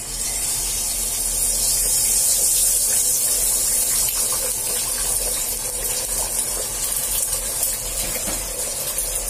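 Beaten eggs sizzling loudly as they hit hot oil in an aluminium wok, a steady, high hiss that starts suddenly as the egg is poured in. The wok holds plenty of oil.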